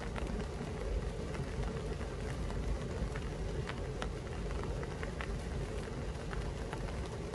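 Steady rain falling, with scattered single drops ticking, over a low rumble.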